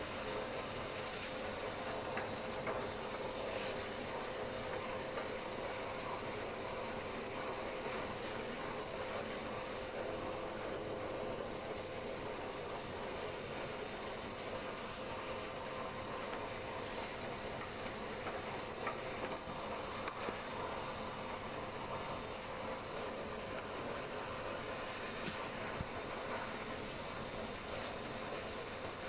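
Vacuum cleaner running steadily on a long carbon-fibre extension pole: an even rush of air with a faint steady whine.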